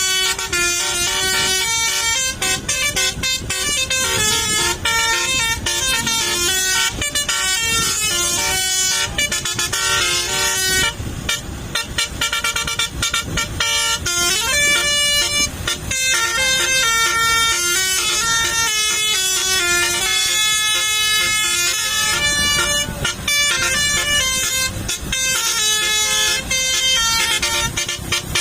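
Tour bus's basuri musical horn playing a long, continuous melody of held notes that change pitch every fraction of a second, with a short break about eleven seconds in.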